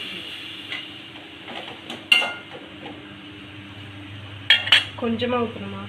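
Long steel spatula stirring and scraping in a metal kadai, with sharp metal clinks against the pan: one loud clink about two seconds in and two more about four and a half seconds in.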